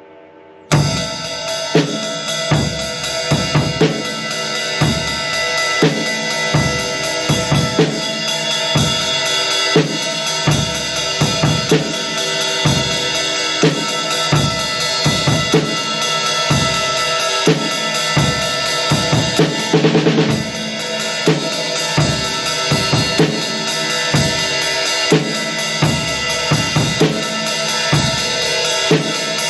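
Drum kit groove of kick and snare under a Paiste Alpha 20-inch Power Ride, whose ringing wash sits over the beat throughout. The playing starts abruptly about a second in and gets a denser, louder swell about two-thirds of the way through.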